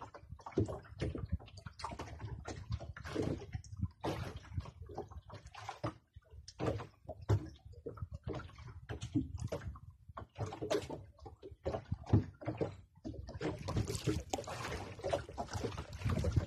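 Sea water slapping and sloshing against the hull of a small outrigger boat in irregular splashes, growing denser and louder near the end.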